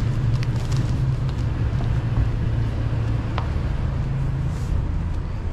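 Steady low hum of a motor vehicle's engine running, with a couple of faint clicks.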